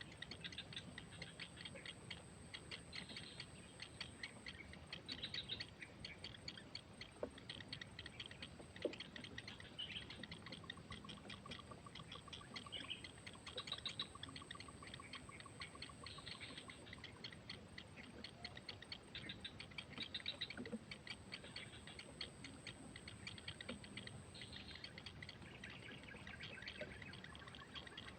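Faint wild birds chirping and calling, over a high, thin insect trill that runs for several seconds at a time, stops, and starts again. Twice a quick, even run of lower pulsing notes joins in.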